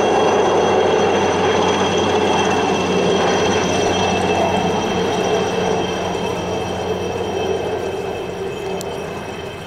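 Helicopter flying away after take-off: a dense steady rumble with a high engine whine, slowly fading over the last few seconds.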